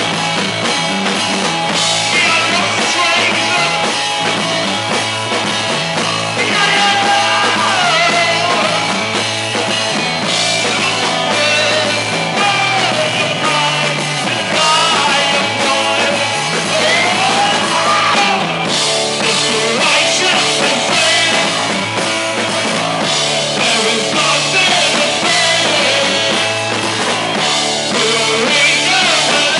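Punk rock band playing live at full volume, with a singing voice over the guitars and drums.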